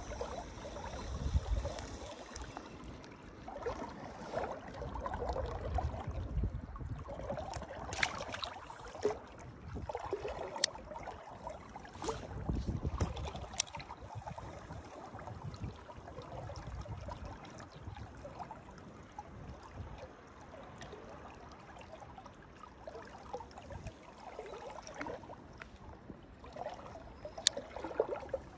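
Shallow river water running and trickling, with uneven low rumbles and a few sharp clicks scattered through.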